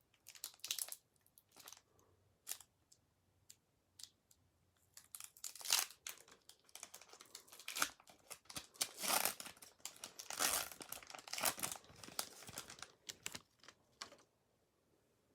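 Foil wrapper of a Pokémon Hidden Fates booster pack crinkling and tearing as it is opened by hand, in irregular sharp crackles that come thickest in the middle.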